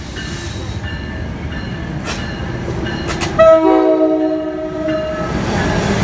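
Diesel commuter train pulling into a station, its engine and wheels rumbling. About three seconds in it sounds a horn of several notes at once for about two seconds, the loudest sound.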